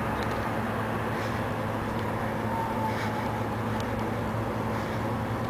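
A steady low hum and rumble with a few faint soft ticks.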